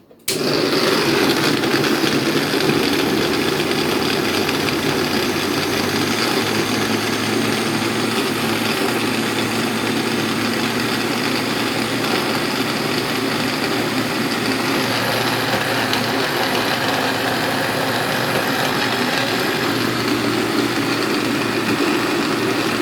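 Electric food processor switched on at the very start and running loudly and steadily, chopping onion, ginger and bitter kola with water into a pulp.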